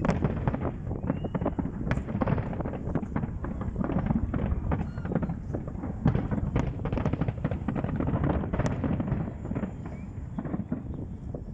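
Fireworks display: a dense, rapid run of bangs and crackling over a low rumble, thinning out near the end.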